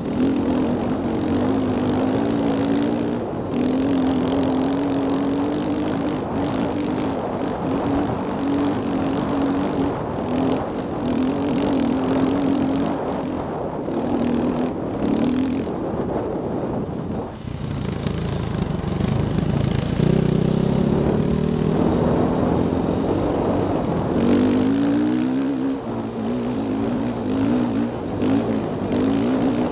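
Dirt bike engine running under part throttle while climbing a dirt trail, its note wavering as the throttle opens and closes. About seventeen seconds in the engine note dips, then carries on at a lower pitch; a few short knocks come through here and there.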